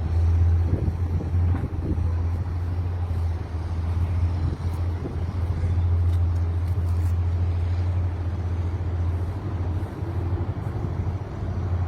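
Wind buffeting the microphone: a steady, loud low rumble that rises and falls slightly in strength.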